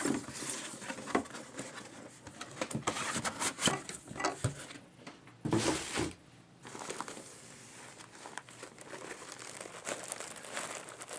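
Packaging being handled by hand: rustling and crinkling with scattered light knocks, and a louder short bump about five and a half seconds in.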